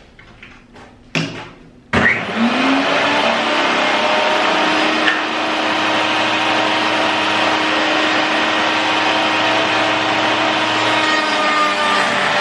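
A 1500 W Lombarte MR-40V table router's motor starts up suddenly about two seconds in, after a brief knock. It spins up over a couple of seconds, then runs steadily at full speed with a red profile bit fitted, ready to cut a board.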